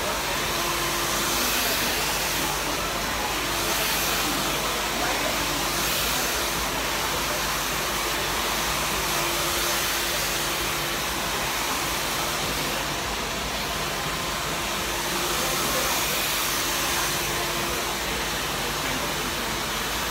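Handheld salon hair dryer running steadily as hair is blow-dried: an even rush of air with a faint steady hum underneath.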